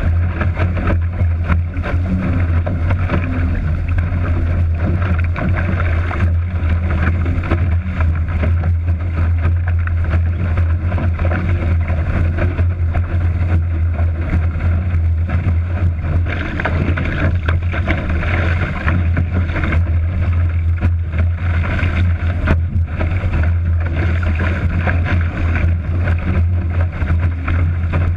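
Strong wind buffeting the microphone of a camera mounted on a sailing dinghy's foredeck, a steady deep rumble. Water rushes along the hull and sprays off the bow as the boat sails hard in the gusty conditions.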